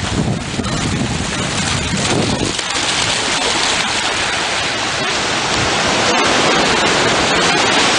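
Surf washing in and a dog splashing as it runs through the shallow water.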